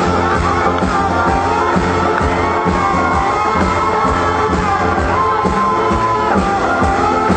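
A pop-rock band playing live, with a sung melody over steady bass and drums.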